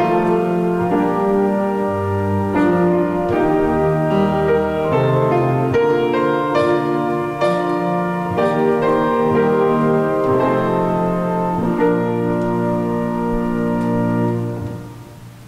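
Slow instrumental keyboard music of held chords, dying away about a second before the end.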